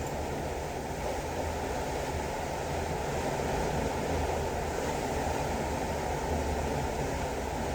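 Steady rushing of the sea beside a cruise ship, an even wash of water noise with a low rumble underneath.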